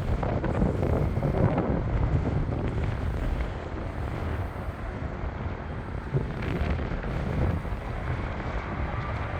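Jet airliner on its landing approach: a steady rumble of the engines, loudest in the first couple of seconds, with wind buffeting the microphone.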